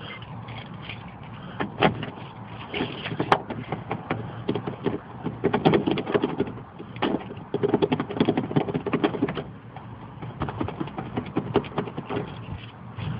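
Jiggler key being rocked and raked in a car door lock, a quick metallic clicking and rattling that comes in runs, thickest in the middle, with one sharper click a little over three seconds in.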